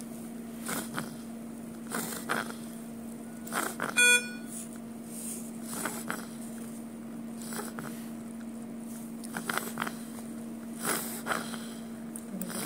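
A baby's short, airy breaths through a tracheostomy tube, coming every second or so and often in pairs, over a steady hum. A single short electronic beep sounds about four seconds in.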